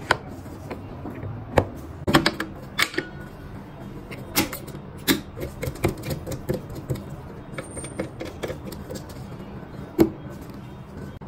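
Sharp, irregular clicks and knocks of a phone being seated in a plastic-and-metal holding fixture and a suction-cup clamp being fitted onto it, over a steady low hum.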